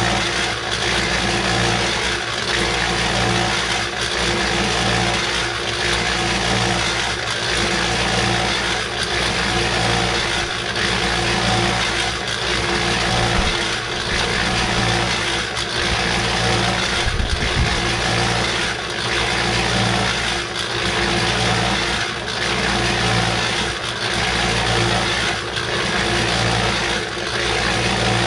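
Small electric cement mixer running, its drum turning and tumbling dirt: a steady motor-and-gear drone that swells and dips in a regular rhythm about once every two seconds.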